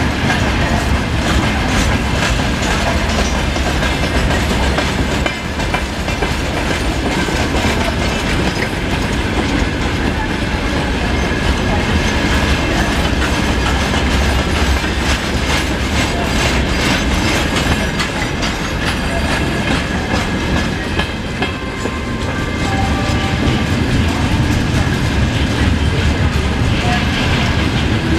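Freight train wagons (loaded flatcars, hoppers and open gondolas) rolling past at speed: a steady rumble with the clickety-clack of wheels over the rail joints.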